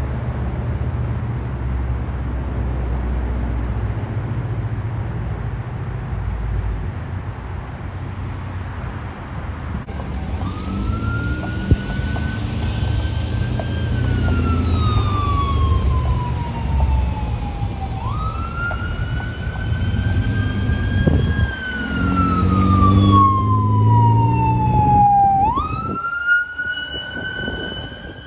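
Fire engine's wail siren sweeping up quickly and falling slowly in cycles of about seven seconds. It comes in about ten seconds in and grows louder, over steady road traffic rumble.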